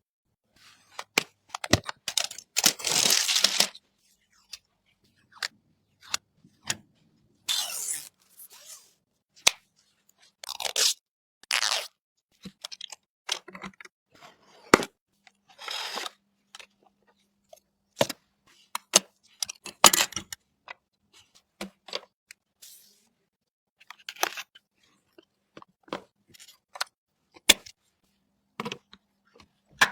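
Computer parts and their packaging being handled: scattered sharp clicks and snaps, with short crinkling, tearing rustles of plastic or paper, the longest about two to four seconds in and again around eight, eleven and twenty seconds.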